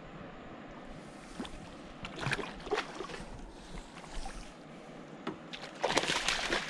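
A hooked pacu-caranha thrashing at the water's surface beside a boat, with scattered short splashes and knocks about two to three seconds in and a loud splash about six seconds in.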